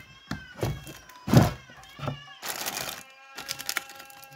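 A domestic cat meowing, mixed with a few sharp knocks and a burst of rustling about halfway through.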